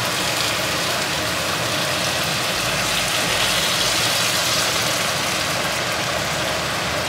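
Boiling water poured in a steady stream from a stainless steel pot into a hot pan of browned beef chunks, splashing onto the meat.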